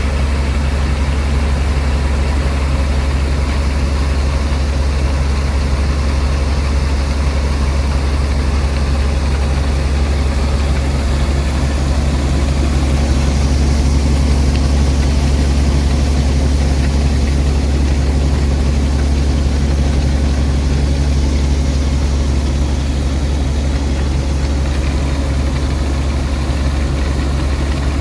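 Heavy farm machinery's diesel engine running at a steady speed with a deep, even drone.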